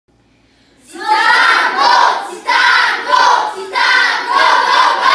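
A group of children and adults shouting a team cheer in unison, "Go Titans!", repeated several times in short loud phrases, starting about a second in.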